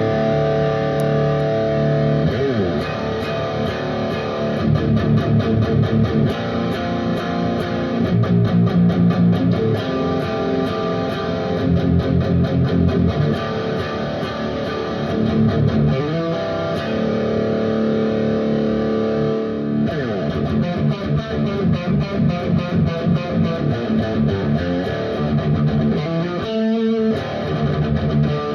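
Electric guitar played through a Becos FX CompIQ Mini Pro compressor pedal: sustained chords and picked riffs with a few slides. The notes are held even and long.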